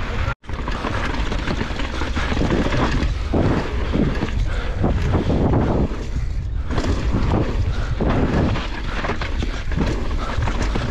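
Mountain bike descending a rough gravel and rock trail at speed: wind rumbling on the action camera's microphone, with tyres crunching over loose stones and the bike rattling over bumps. The sound drops out for a moment about half a second in.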